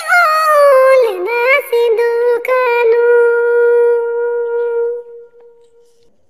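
A high voice singing a melody that bends up and down, then holding one long steady note that fades away about five seconds in.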